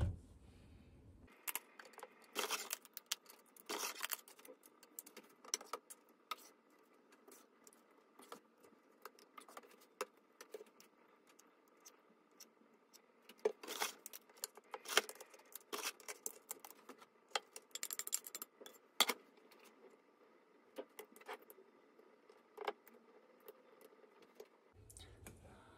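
Metal spoon, ladle and fork clinking and scraping against a ceramic baking dish and a frying pan while lasagna layers are spooned and spread, in irregular sharp taps.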